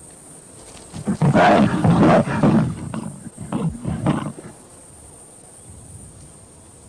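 Lion growling and snarling. A loud, rough growl runs for about two seconds starting a second in, then breaks into a few shorter growls that die away.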